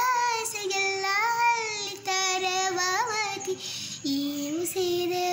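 Young girl singing solo, holding long notes with slides between them, in phrases with short breaks for breath.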